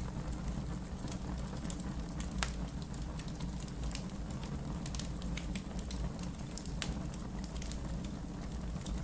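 Wood fire burning in a fireplace: a steady low rumble with scattered sharp crackles and pops, a few louder ones standing out.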